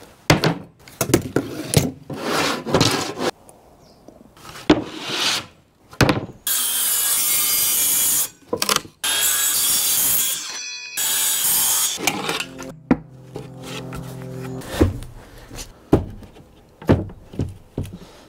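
Handheld circular saw cutting a plywood sheet along a straight-edge guide, running loud from about six to twelve seconds in with two short breaks, then winding down. Before and after the cut, knocks and scrapes of plywood being handled on the workbench.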